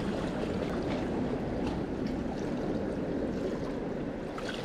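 Sea water washing and sloshing among concrete tetrapods, a steady rushing wash.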